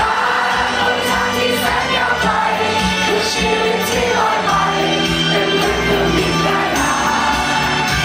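Idol girl group singing a Thai-language pop song live into handheld microphones over a pop backing track.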